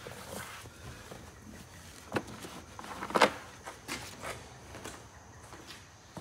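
Microfiber cloth wiped over hard plastic engine covers: faint rubbing with a few light knocks on the plastic, the loudest about three seconds in.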